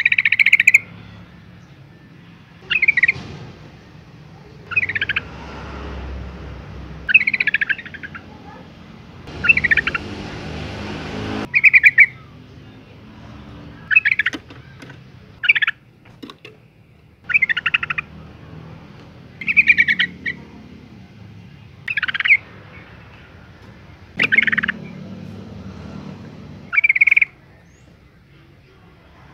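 Yellow-vented bulbul calling: about a dozen short, bubbling phrases, repeated roughly every two seconds. The uploader presents it as a female in breeding condition calling for a male. A steady hiss sits under the calls for about two seconds near the middle.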